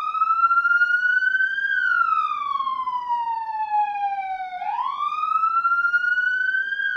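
A siren wailing in a slow rise and fall of pitch. It climbs for about two seconds, sinks for about three, then climbs again near the end.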